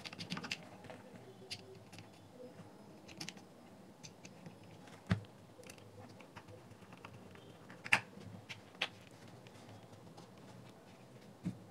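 Faint, scattered clicks and ticks of a hand screwdriver turning small screws into the plastic bottom plate of a Bluetooth speaker as the speaker is handled. A few sharper clicks come about five and eight seconds in.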